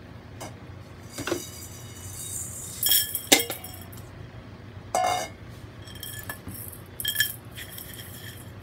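Hard objects clinking against each other about seven times at irregular intervals, some hits with a brief ring, the loudest about three and a half seconds in, over a low steady hum.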